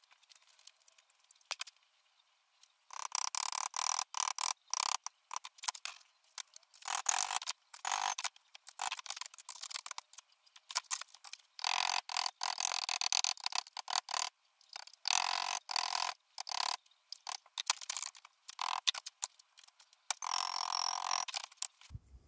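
Hammer tapping a small steel repair panel to bend it over a curved former held in a bench vise: quick runs of sharp metallic taps that start about three seconds in and come in bursts with short pauses.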